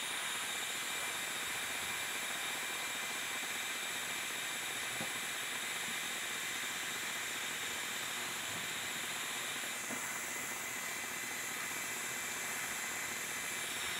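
Industrial hot-air gun blowing steadily with an even hiss, heating an aluminium crank arm to expand it off a seized steel spindle.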